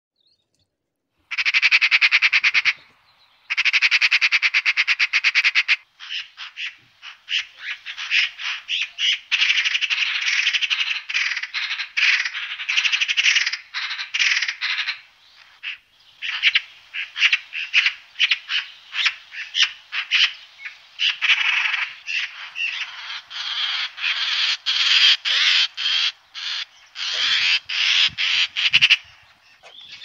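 Magpie giving its harsh, rapid rattling chatter, in long runs of fast repeated notes with short breaks between them, beginning about a second in.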